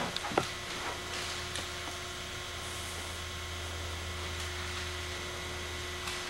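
Steady low electrical hum with a thin steady tone over it, broken by a few faint handling clicks and one sharper click about half a second in.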